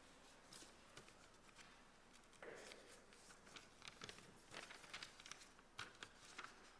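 Near silence: room tone with faint scattered rustles and small clicks, which come more often in the second half.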